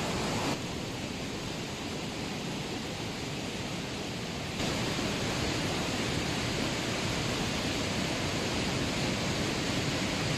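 Rain-swollen mountain stream rushing after heavy overnight rain, a steady roar of fast floodwater. The level drops slightly about half a second in and rises again after about four and a half seconds.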